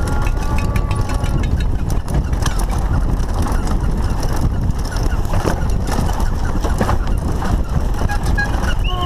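Wind rushing over the bike-mounted camera's microphone and the rattle of a Lapierre Spicy full-suspension mountain bike going fast over rough dirt trail, a steady loud rumble broken by frequent clicks and knocks from the bike. A faint held tone sounds briefly in the first second or so.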